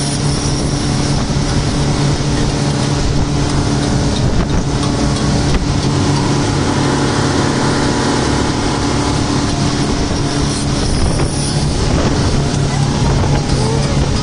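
Speedboat running steadily at speed: a constant engine drone over the rush of churning water and wind.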